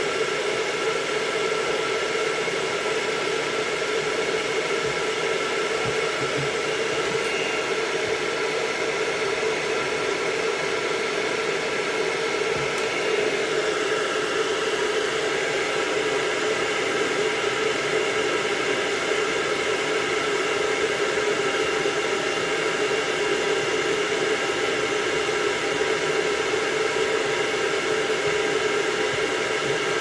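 Arm-mounted pet grooming dryer blowing steadily: rushing air with a steady motor whine over it.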